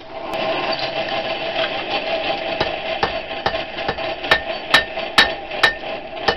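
Hand hammer striking hot tool steel on an anvil to draw out a knife blade. A few light taps come first, then regular ringing blows, about two a second, from around four seconds in, all over a steady rushing noise.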